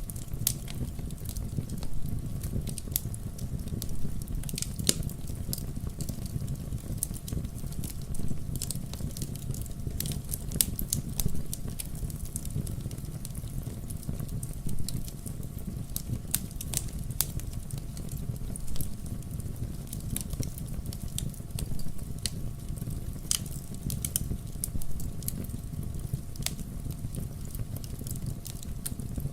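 Logs burning in a fireplace, crackling with irregular sharp pops over a steady low rumble of the fire.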